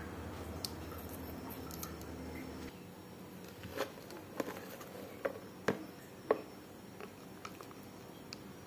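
A low hum that stops about three seconds in, then about five light clicks and taps over a couple of seconds and a few fainter ones, the handling sounds of preparing raw eggs and sliced onion in a bowl.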